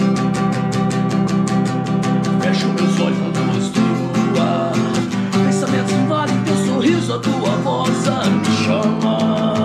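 Acoustic guitar strummed in a steady rhythm, with a man singing a slow ballad over it from a few seconds in.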